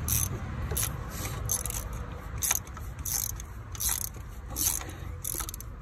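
Socket ratchet clicking in short, irregular strokes while it loosens a spark plug.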